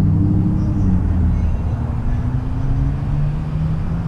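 An engine running steadily with a low hum whose pitch drifts slowly up and down.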